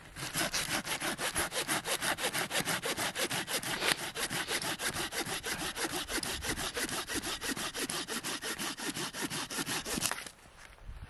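Folding hand saw cutting through a fallen birch branch with fast, even back-and-forth strokes, several a second, stopping about ten seconds in.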